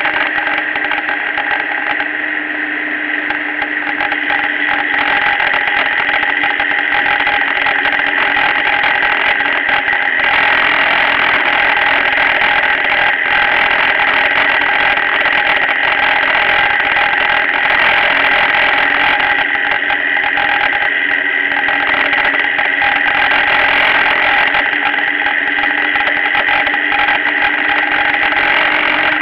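Motorcycle running at steady road speed, its engine drone mixed with a constant rush of wind and road noise, heard from a camera mounted on the bike.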